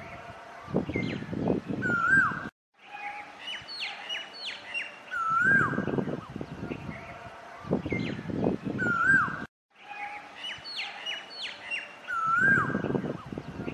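Asian koel calling, a short rising note repeated every few seconds, among higher sliding chirps of other small birds. Loud bursts of low rumble come and go underneath, and the sound cuts out briefly twice.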